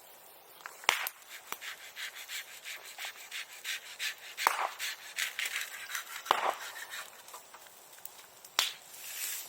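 Bonfire crackling with rapid small snaps and four louder sharp pops, and a brief hiss near the end.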